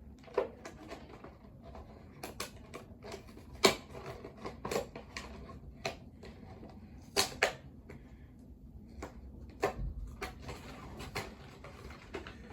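Hands handling a toy set and its packaging: irregular sharp clicks and taps, a dozen or so spread unevenly.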